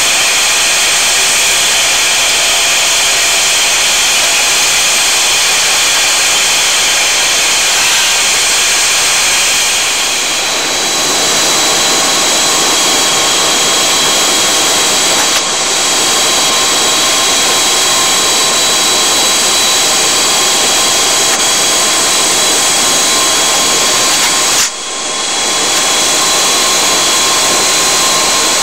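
Aircraft engines running steadily in flight, heard inside the cockpit as a loud, even roar with several high whines. The tone shifts about ten seconds in, and the sound briefly dips twice, most deeply about three-quarters of the way through.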